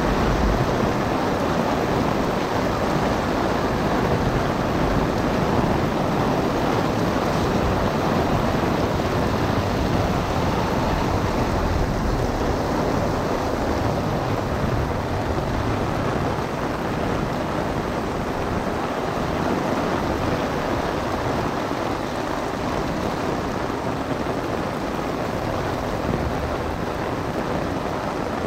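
Heavy downpour pouring onto an umbrella overhead and the street around it, a dense steady hiss, with wind rumbling on the microphone.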